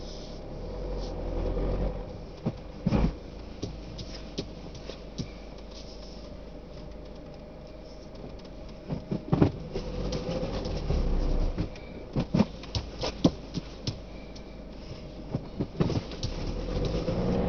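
Inside a car driving slowly: the engine and road rumble swell and fall as it moves off and eases along, with irregular sharp knocks and clicks from the cabin.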